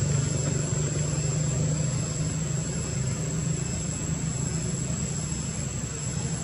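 A steady low engine-like drone under an even hiss, with a constant thin high tone above it.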